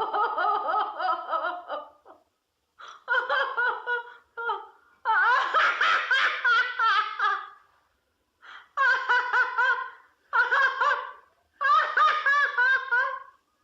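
A woman laughing in about five high-pitched bouts of quick, pulsed laughter, each one to three seconds long, separated by short pauses.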